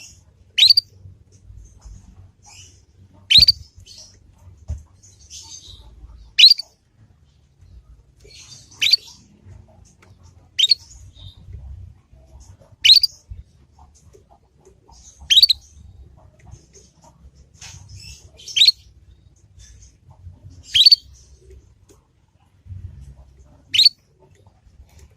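Young canary giving short chirp calls that sweep upward in pitch, one every two to three seconds, about ten in all, with faint soft twittering between them.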